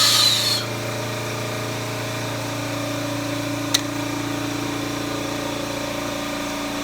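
A power tool's running noise cuts off about half a second in, leaving a steady machine hum with a single sharp click midway.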